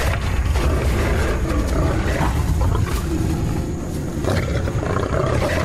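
Male lions fighting, several growling and snarling over one another in a dense, continuous brawl, with sharp scuffles mixed in.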